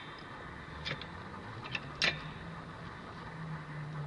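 Car jack being worked to lift the car: a few sharp metallic clicks, roughly one a second and loudest about two seconds in, over a faint low steady hum.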